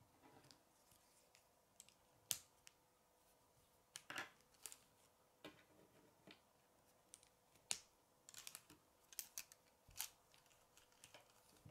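Plastic K'NEX rods and connectors clicking and knocking as pieces are fitted and the scissor linkage is handled: scattered sharp clicks, the loudest about two and eight seconds in, with a quick run of clicks between eight and ten seconds. A faint steady hum lies underneath.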